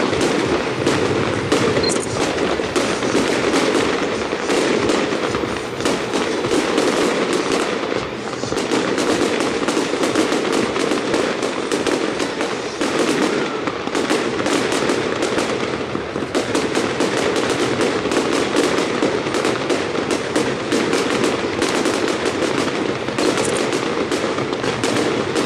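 Fireworks going off in a dense, unbroken crackle of rapid bangs.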